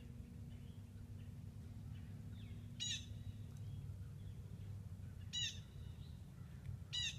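A bird calls three times, each a short call, over a steady low rumble.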